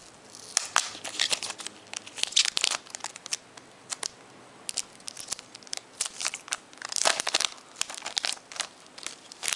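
Thin clear plastic protective film being peeled off a tablet's glossy casing, crinkling and crackling in irregular bursts, loudest about two and a half and seven seconds in.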